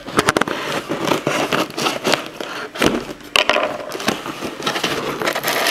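A hard-to-open shipping package being cut and torn open with scissors: a busy run of scraping, crackling packaging and sharp clicks.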